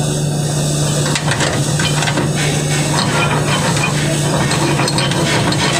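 Chipping hammer tapping and scraping slag off a weld on a steel plate, in scattered light clicks, over a loud, steady hum and hiss of shop noise.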